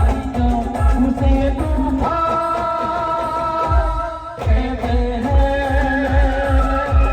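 Indian band playing a Bollywood song: a steady, heavy drum beat under the melody. The drum beat drops out for a moment about four seconds in, then comes back.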